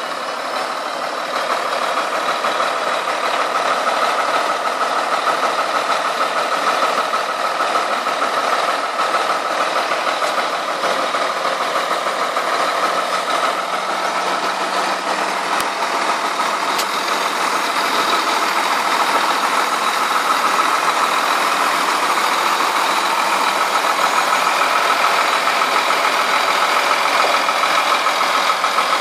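Iveco 440 PS dump truck's diesel engine running steadily while it drives the hydraulic tipping gear, raising the tipper body. The sound gets a little louder over the first few seconds, then holds even.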